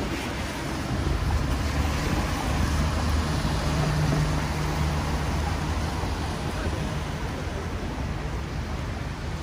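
City road traffic on wet asphalt: a steady hiss of tyres on the wet road, with the low engine hum of a passing heavy vehicle that swells around the middle and fades away.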